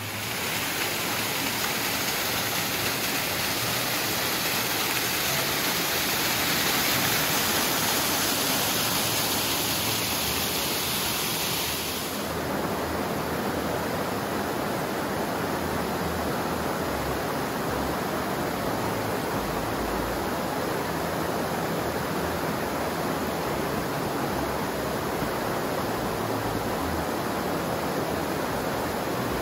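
Steady rush of flowing water, like a stream or small waterfall. About twelve seconds in it changes abruptly to a duller, less hissy rush.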